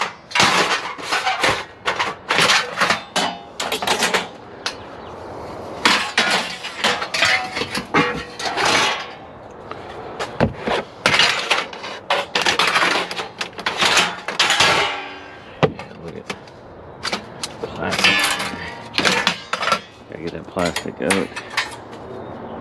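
Long lengths of extruded 6063 aluminum clattering and clanking against each other and the cargo floor as they are shoved and arranged in an SUV's cargo area, in repeated bursts of rattling with brief metallic ringing.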